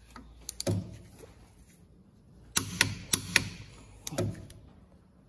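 Plastic clips on the ABS sensor wiring being snapped into place by hand on a car's wheel hub: a series of sharp clicks and small knocks, with a quick cluster of them about two and a half seconds in.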